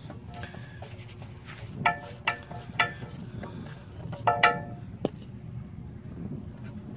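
The hydrostatic transaxle's filter cartridge being worked out of its housing by hand, giving a few short squeaks, the loudest about four seconds in, then a sharp click.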